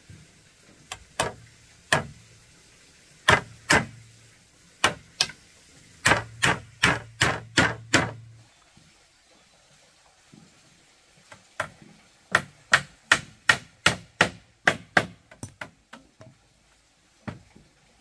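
Repeated hard blows of a tool on wood, coming in short runs: a few single strikes, a quick run of about eight blows a couple of seconds long, then after a pause a run of about a dozen that turn softer and quicker toward the end.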